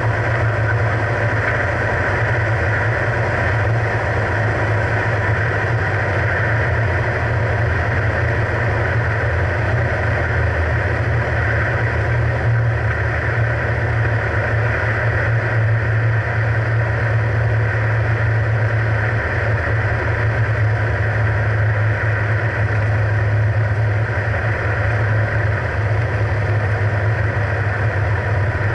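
Single-engine piston airplane's engine and propeller, heard from inside the cockpit as a loud, steady drone on final approach and touchdown.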